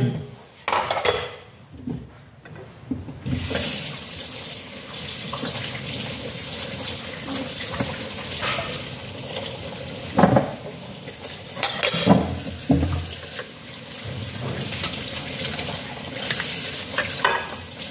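Water running steadily from a kitchen tap, starting about three seconds in, with a few sharp knocks of bowls or utensils partway through.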